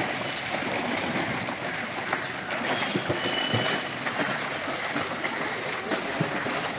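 Water splashing and churning in a swimming pool as a swimmer kicks and strokes on her back, with a steady run of irregular splashes.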